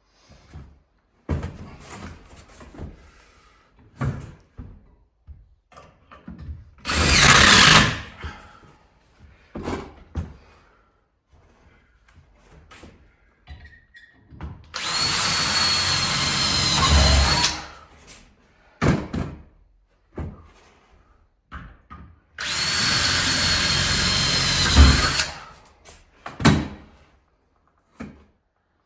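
Power drill running in three bursts, a short one followed by two longer runs of two to three seconds each with a steady high whine, and scattered knocks and clatter of handling between them.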